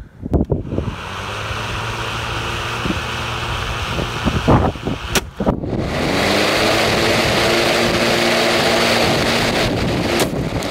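Walk-behind lawn mower running tipped up on its side, its blade spinning underneath. It runs steadily, with a few sharp knocks about five seconds in, then runs louder and steady from about six seconds.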